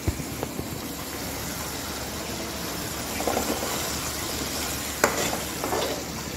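Onion-tomato masala paste sizzling as it fries in a kadhai, with a metal spatula stirring and scraping through it and clicking against the pan now and then, most sharply about five seconds in. A low thump right at the start.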